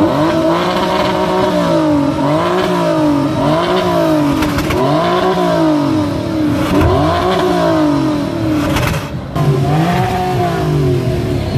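Audi RS4 Avant's twin-turbo V6 revved again and again while parked, heard close at the tailpipes: the engine note rises and falls about five or six times, each rev lasting a second or two.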